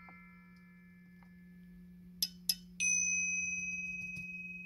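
A bright bell-like "ting" in a music test track played through the car's speakers: two short clicks a little after two seconds in, then one ringing strike that slowly dies away, over a steady low hum.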